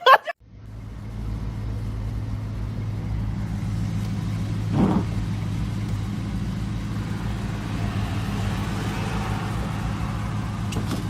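Steady low hum like a motor vehicle's engine and road noise, fading in just after the start, with one brief louder sound about five seconds in.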